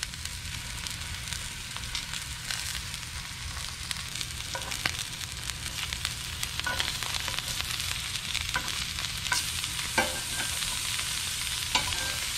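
Wahoo medallions frying in oil in a cast-iron skillet: a steady sizzle, with a few sharp clicks scattered through it.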